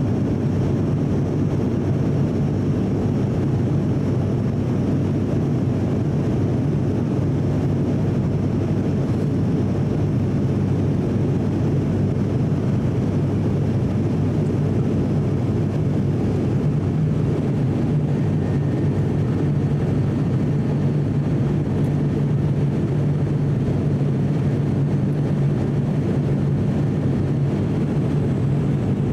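Cabin drone of an ATR 42-600 turboprop heard from a seat beside the propeller: a steady low hum from the propeller, with engine and airflow noise beneath it, unchanging while the plane descends through cloud on approach.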